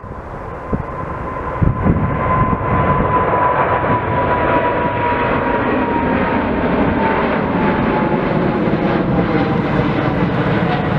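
Boeing 777-300ER's twin GE90 turbofans at take-off thrust as the jet climbs out overhead: a loud jet roar that builds over the first two seconds and then holds steady. A fan whine sits on top of it and slowly falls in pitch as the aircraft passes.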